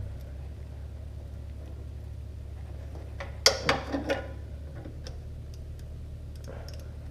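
A short burst of sharp metallic clicks and clatter about halfway through, typical of tools and small metal parts knocking as a part is fitted back on an ATV engine during an oil change, over a steady low hum and a few faint ticks.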